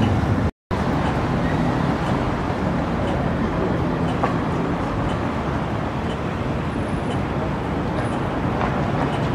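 Steady city street noise of passing car traffic, a low even rumble with a brief dropout about half a second in.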